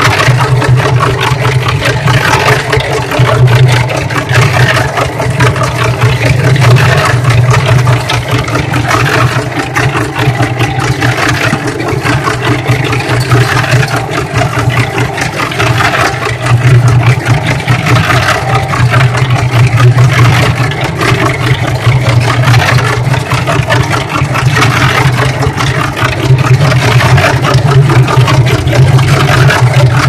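Cement mixer running steadily with a low hum, its drum turning a load of clothes through soapy water that sloshes and splashes inside: the mixer is doing the wash as a makeshift washing machine.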